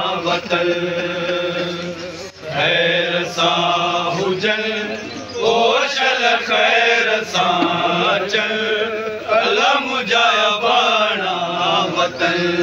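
A group of men chanting a noha, a Shia mourning lament, together in unison, in sung phrases a few seconds long with short breaks between them.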